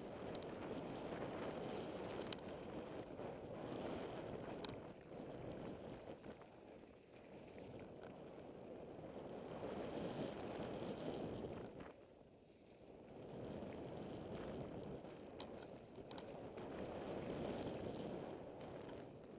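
Rushing noise of a mountain bike riding fast down a loose gravel track: tyres rolling over gravel and wind over the camera microphone, swelling and fading with speed and dropping off briefly about twelve seconds in. A few sharp ticks of stones or bike rattle stand out here and there.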